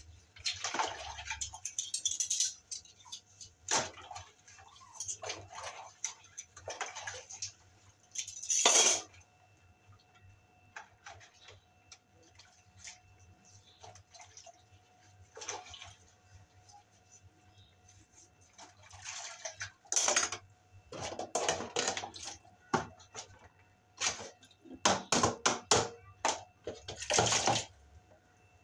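Utensils being washed by hand in a basin of water: irregular splashing and swishing with sharp clinks of dishes and cutlery, quieter for a stretch in the middle.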